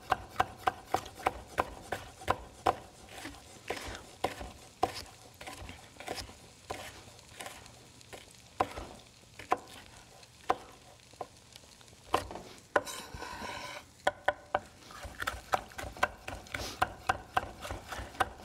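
Chef's knife julienning a red bell pepper on a wooden cutting board: the blade knocks the board in a quick, even rhythm of about five cuts a second, slower and more irregular through the middle. There is a brief scraping sound about two-thirds of the way through.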